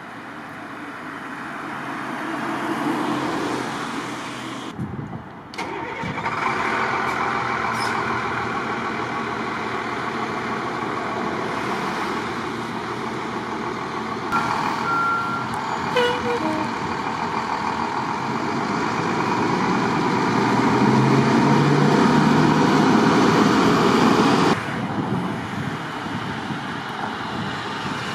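Road traffic: trucks and cars driving past, their engines and tyres swelling in loudness. The sound is loudest a few seconds before the end, then drops suddenly.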